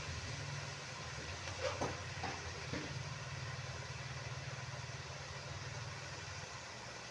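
Shrimp, carrots and green beans sizzling in a wok over a gas stove: a steady hiss over a low rumble, with a few light knocks about two seconds in.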